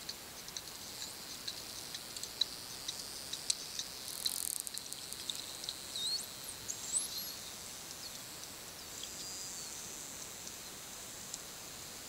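Bottlenose dolphins recorded underwater: scattered high clicks, a quick burst of rapid clicks about four seconds in, then short whistles gliding up and down around six to seven seconds in and again near ten seconds, over a steady underwater hiss.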